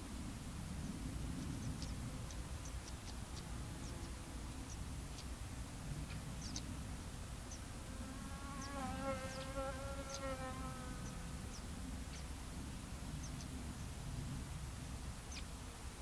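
A flying insect buzzing past the microphone for about three seconds midway, swelling and then fading away. Faint, brief high chirps come and go throughout.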